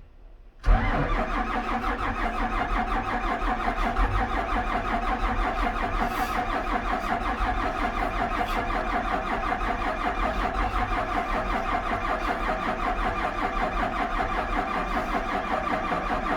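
Starter motor cranking the diesel engine of a Hyundai 770-7A that is hard to start: a steady whine with a fast even pulse from the compression strokes, kept up for about sixteen seconds without the engine catching, then cut off abruptly.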